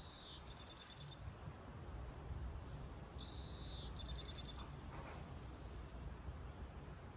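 Oriental greenfinch singing: a drawn-out buzzy note followed by a quick run of short twittering notes, heard once at the start and again about three seconds in, over faint low background rumble.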